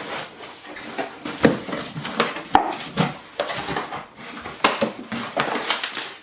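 A delivery parcel being opened by hand: its packaging rustles and crinkles, with many irregular crackles and knocks as it is pulled apart and the bagged contents are handled.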